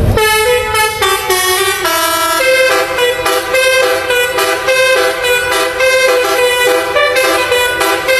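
Indonesian bus telolet horn: several air horns sounding together and playing a stepped melody, the notes changing every second or so over one held tone.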